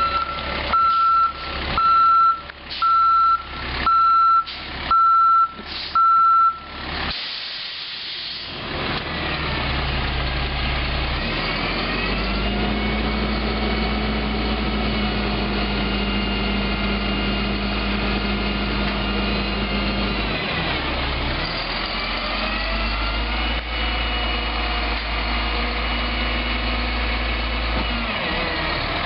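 Reversing alarm on heavy equipment, beeping about once a second, seven beeps, then stopping. The machine's engine keeps running under it, rising and falling in pitch as it works.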